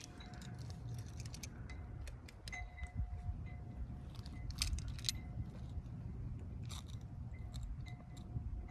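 Wind blowing on the microphone with a steady low rumble, and scattered small clicks and rattles of handling throughout.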